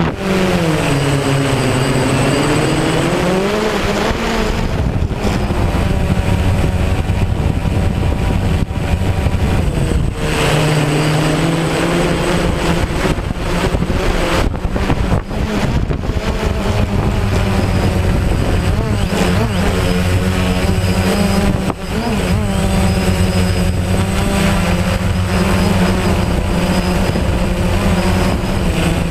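DJI Phantom quadcopter's electric motors and propellers buzzing in flight, the pitch dipping and rising repeatedly as the motors change speed to hold against strong wind, with wind rushing over the microphone.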